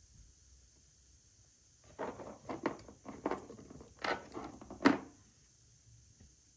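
Packaging being handled and unwrapped: a run of rustling and knocking noises lasting about three seconds, ending in a sharp click that is the loudest.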